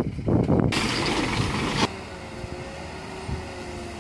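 A heavy truck overloaded with marble boulders grinding up a steep rocky track, its engine loud and rough at first. A loud hiss comes in under a second in and cuts off suddenly, leaving a fainter steady engine drone with a thin whine.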